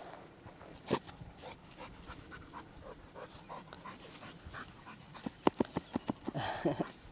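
Labrador retriever and her puppy snuffling with their noses at the ground, with a few faint short whimpers early on. From about five seconds in comes a fast run of short, sharp sniffs, about six a second, the loudest part.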